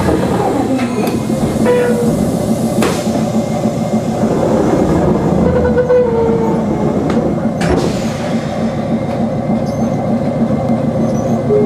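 Kumamoto Electric Railway 5000 series electric railcar running along the line, heard from inside its driver's cab: a steady rumble of motors and wheels on the rails, with a few sharp clicks of the wheels over rail joints and brief whining tones.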